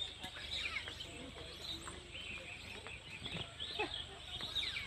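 Outdoor ambience: small birds chirping here and there in short, scattered calls over a steady low background hum.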